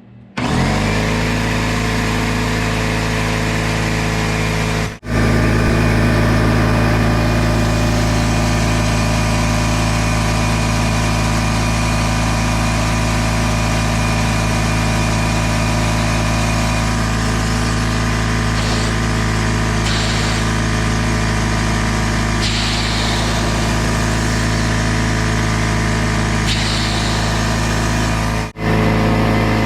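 Craftsman oilless air compressor running loud and steady, its motor and pump charging the tank to blow leftover condensation water out of the open drain. It drops out for a moment twice, and a few short hisses come in the second half.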